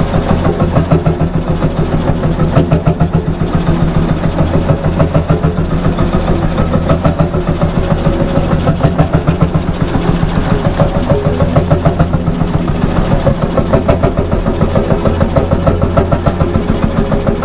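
HSCS G35 tractor's single-cylinder two-stroke hot-bulb engine idling steadily, with an even beat of exhaust pulses.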